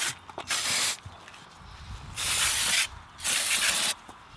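Aerosol brake cleaner sprayed onto a bicycle disc brake rotor in three short hissing bursts, each about half a second long, degreasing the oil-contaminated disc.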